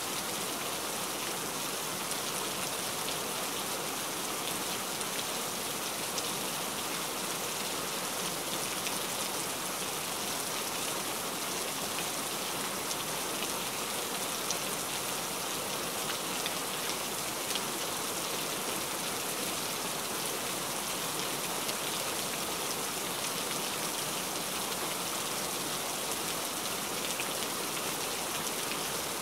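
Heavy rain falling steadily: a dense, even hiss with many small drop ticks.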